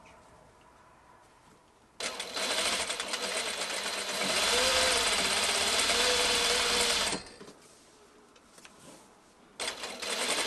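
Juki sewing machine stitching patchwork pieces of a quilt block together: a run of about five seconds with the motor speeding up and slowing, then it stops, and starts stitching again near the end.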